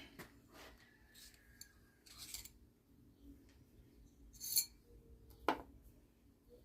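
Small metal pen-mandrel spacers being handled and dropped into a box: light scattered clicks and taps, with a bright metallic clink about four and a half seconds in and a sharper knock about a second later.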